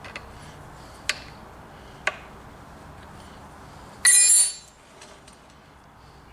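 Metal tools and parts being handled while the chain on an old chainsaw is adjusted: two light clicks about a second apart, then a louder, brief metallic clink that rings about four seconds in.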